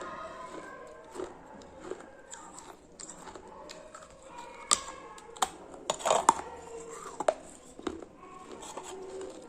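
Close-up chewing of something hard and crunchy: a run of sharp crunches, with the loudest cluster about five to seven seconds in.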